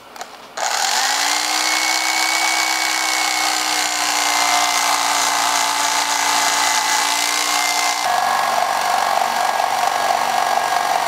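Electric carving knife running as its blades saw through a thick slab of new polyurethane cushion foam. It starts with a short rising whine, then holds a steady pitch, which drops a little about eight seconds in.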